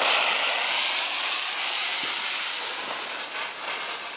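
Lit Comet cubic cannon cracker (Kanonenschlag) hissing steadily and loudly as its fuse burns and it spews smoke. The hiss cuts off suddenly at the very end as the cracker goes off with a bang.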